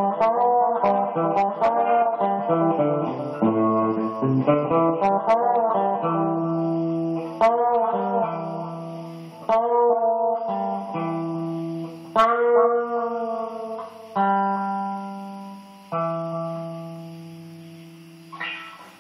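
Solo guitar: quickly picked notes for the first several seconds, then single chords struck about every two seconds and left to ring out, the last one dying away. A short scrape sounds about a second before the end.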